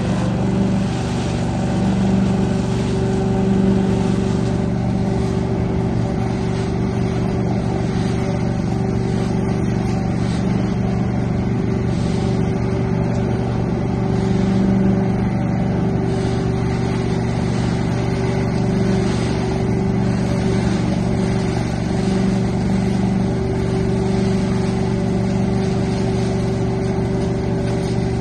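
Truck-mounted leaf vacuum running at a steady pitch, a constant drone from its engine and fan as it sucks raked leaves up through its wide hose.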